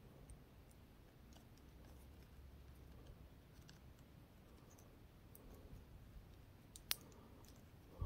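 Faint small clicks and taps of hard plastic as a fire-blast accessory is worked into the mouth of a Playmates Godzilla action figure, with one sharper click about seven seconds in.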